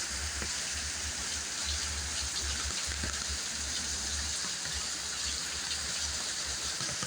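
Heavy rain pouring steadily, with a low fluttering rumble underneath.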